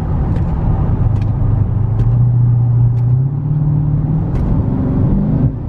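Dodge Charger SRT Hellcat's supercharged 6.2-litre HEMI V8 heard from inside the cabin, pulling under acceleration in sport mode, its pitch climbing and stepping higher about three seconds in.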